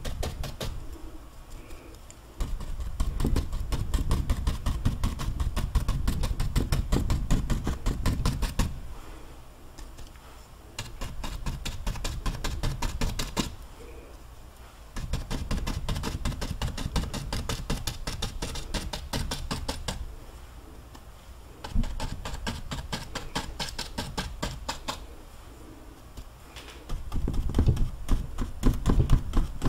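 Paintbrush loaded with thick oil paint dabbing and scratching rapidly against stretched canvas, in bouts of a few seconds with short quieter pauses between.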